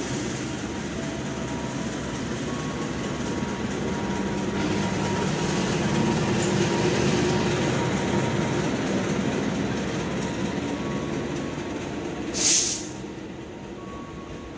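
KAI CC 206 diesel-electric locomotive running light on a shunting move. It passes close by, its engine growing louder to a peak about six to eight seconds in, then fading as it moves away. A short, sharp hiss sounds near the end.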